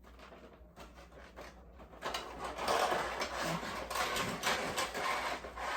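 Rustling and rubbing of packaging with light knocks as model kit parts are handled and lifted out of a box, growing louder about two seconds in.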